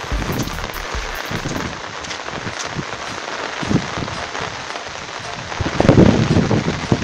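Heavy rain pattering on an umbrella held overhead, a dense, steady patter of drops, with a louder low rumble about six seconds in.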